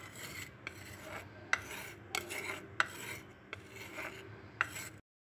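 A wooden spatula stirring chunky vegetables in a clay pot: repeated rough scraping strokes against the pot, roughly one or two a second, each with a sharp knock. It cuts off abruptly near the end.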